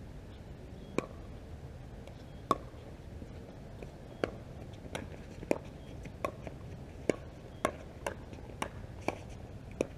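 Pickleball rally: a series of about a dozen sharp pocks from paddles hitting the hollow plastic ball, and the ball bouncing on the hard court, coming quicker in the second half.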